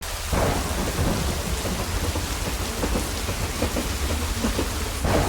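Steady heavy rain pattering on a surface, with a continuous low rumble of thunder underneath.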